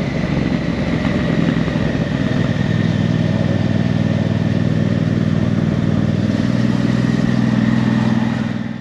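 Motorcycle engine running at riding speed, heard from the rider's seat as it crosses a steel grate bridge deck, with tyre and wind noise; the engine note rises a little after about six seconds, and the sound fades out at the very end.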